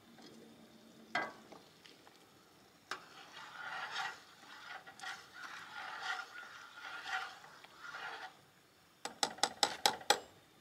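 A spoon stirring and scraping through a pot of lentil stew, with a quick run of about seven sharp clinks near the end.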